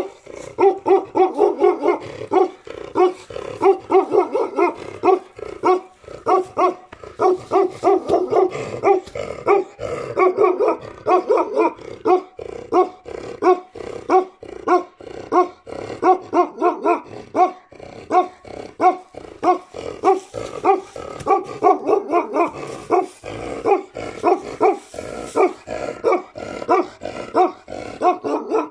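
Bakerwal dog barking over and over in a steady run of about two barks a second.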